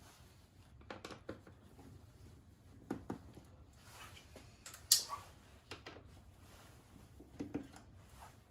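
Faint handling noises from taking apart a plastic display housing: small clicks and taps of hand tools and plastic parts, with one sharper click about five seconds in.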